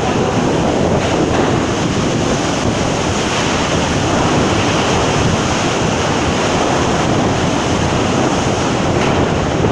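Cyclone storm noise: a loud, steady rush of wind and rough sea, with wind buffeting the microphone.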